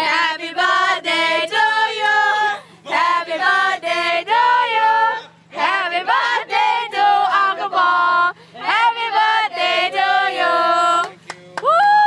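People singing unaccompanied, with held, gliding notes in phrases broken by short pauses. A faint steady low hum runs underneath.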